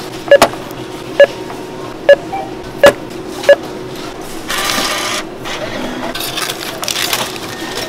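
Self-checkout barcode scanner beeping as items are scanned: a run of short, identical beeps, roughly one a second over the first three and a half seconds. A brief burst of noise follows about a second later.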